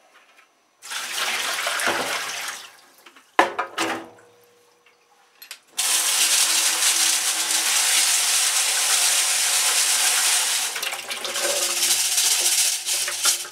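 Water pouring into a stainless steel sink, then a couple of short knocks. About six seconds in, a kitchen tap starts running steadily onto copper still packing in a stainless strainer over a plastic jug.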